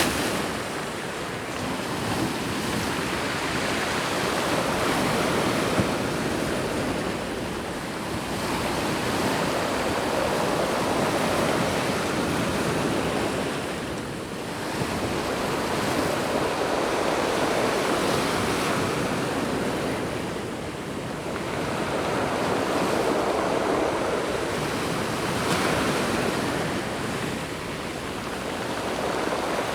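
Sea waves breaking on a beach: a continuous wash of surf that swells and eases about every six to seven seconds as each wave comes in.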